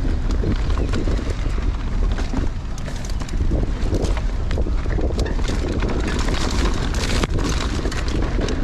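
Wind buffeting the microphone while a Giant Stance 2 full-suspension mountain bike is ridden fast down a dirt trail, with steady tyre noise and many scattered sharp clicks and rattles from the bike.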